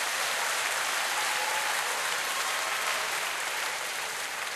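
Studio audience applauding, the applause easing off slightly toward the end.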